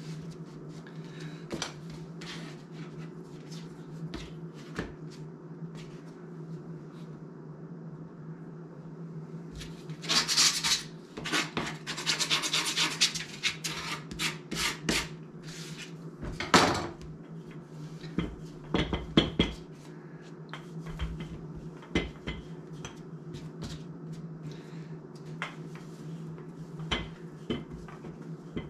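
Dough being worked on a plastic cutting mat: rubbing and pressing, with a stretch of rapid knife scraping and cutting from about ten to fifteen seconds in and a few sharp knocks soon after. A steady low hum runs underneath.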